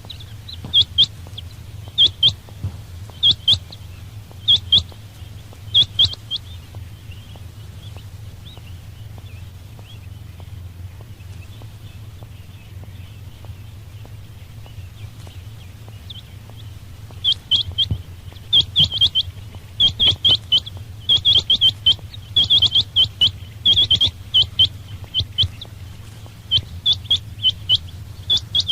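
Quail (batair) calling: short, sharp calls in clusters of two or three notes, repeated about once a second for the first six seconds, then a pause of about ten seconds, then a faster, denser run of calls from about seventeen seconds on. A steady low hum lies under it.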